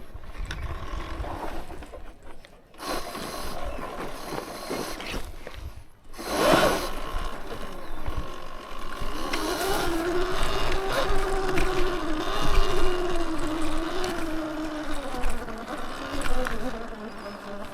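A small motor whining, its pitch wavering slowly up and down as it runs, over a low rumble of wind on the microphone.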